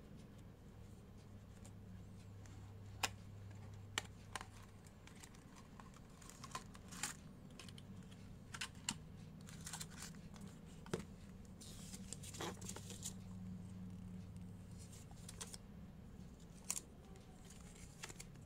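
A small cardboard earphone box being opened by hand and its paper user guide and leaflets pulled out and unfolded: scattered clicks and taps of cardboard with paper rustling, the longest rustle about twelve seconds in. A low steady hum runs underneath.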